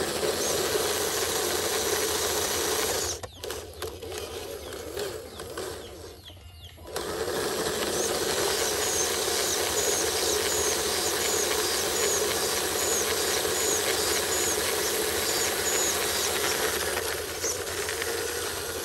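Electric motor and gearbox of a radio-controlled Hino truck model whirring as it drives, dropping away about three seconds in and picking up again around seven seconds.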